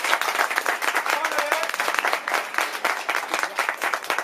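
Spectators clapping and applauding, a dense run of quick claps.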